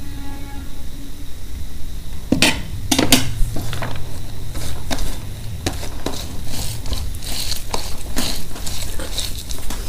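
Fingers squeezing and mixing sliced raw onion and dried red chilli flakes on a steel plate, with small clicks, crackles and scrapes on the metal. Two sharp clinks about two and a half and three seconds in, as a small glass bowl meets the steel.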